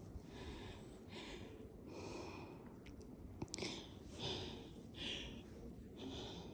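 Faint, rhythmic crunching and breathing of a person trudging through deep snow, a soft rustle about once a second, with a couple of small clicks midway.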